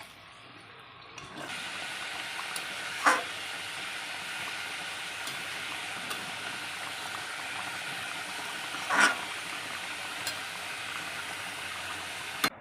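A steady hiss that starts abruptly about a second in and cuts off near the end, with two brief louder sounds, one about three seconds in and one about nine seconds in.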